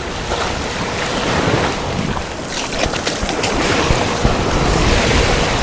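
Surf breaking and washing onto the beach, with wind buffeting the microphone; the wash swells a little louder partway through.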